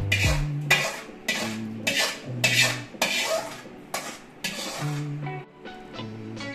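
Background music with a steady beat of about two strokes a second over a bass line, with a metal ladle clinking and scraping as thick curry is stirred in a wide metal pot.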